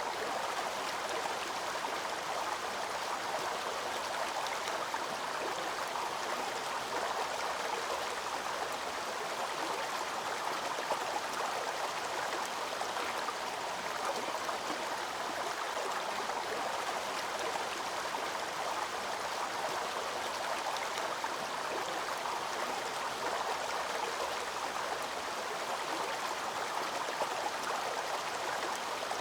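Waterfall water rushing in a steady, unbroken wash of noise.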